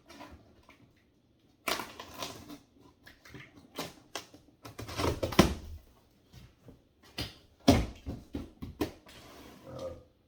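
Cardboard box being handled and shifted: irregular knocks, scrapes and rustling of the cardboard, with the heaviest thumps about five and eight seconds in.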